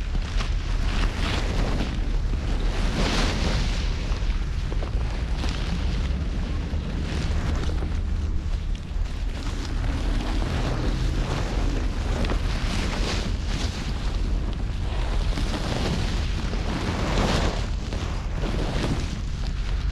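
Small waves washing and breaking over a rocky shore in repeated swells, with wind buffeting the microphone as a heavy low rumble.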